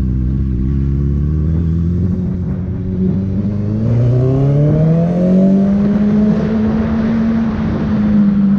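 Honda CB 650F's inline-four engine running through a full Jeskap sport exhaust, rising in pitch as the bike accelerates, dropping briefly about three seconds in as it shifts up, then rising again and holding at a steady higher pitch.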